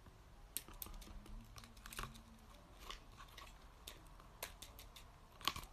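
Faint, scattered clicks and plastic crinkles as a small plastic Micropets toy and its plastic packaging are handled, the sharpest clicks about half a second in and near the end.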